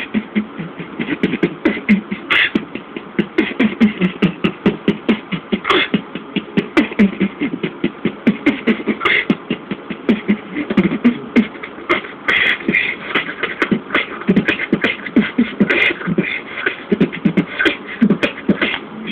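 Human beatboxing: fast, rhythmic vocal percussion of sharp snare-like clicks over short bass pulses, done with a hand held at the mouth and nose.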